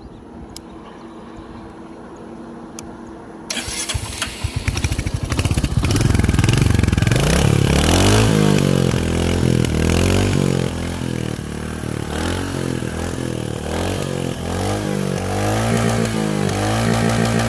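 Royal Enfield Hunter 350's single-cylinder engine and exhaust: a few clicks, then the engine is started about three and a half seconds in and settles into a thumping idle. From about seven seconds on the throttle is blipped over and over, the pitch rising and falling with each rev.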